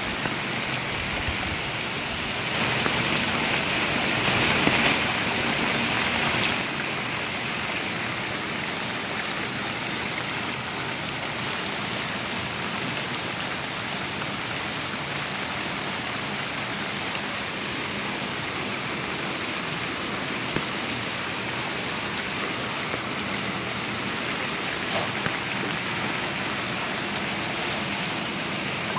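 Rain falling steadily onto flooded street water, an even hiss that swells louder for a few seconds near the start.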